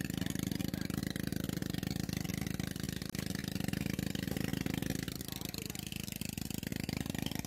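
A small engine running steadily, with a fast, even throb.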